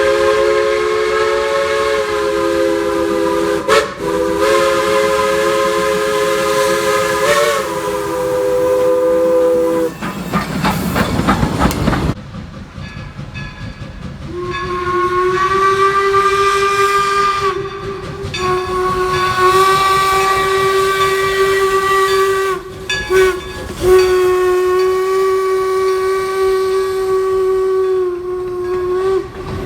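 Steam locomotive whistles. First a chime whistle sounds a chord of several notes, held with two brief dips, and stops about ten seconds in after a short rush of noise. Then a different, single-note whistle blows three long blasts.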